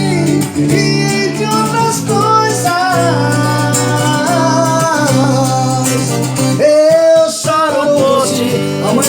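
Music: a melody sung over guitar accompaniment, with steady held chords underneath.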